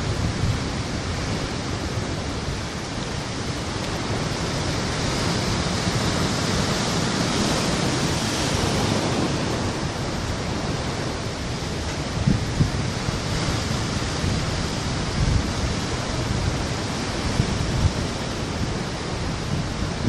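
Sea surf surging and breaking over coastal rocks, a continuous wash of foaming water that swells in the middle. Now and then there are short low thuds.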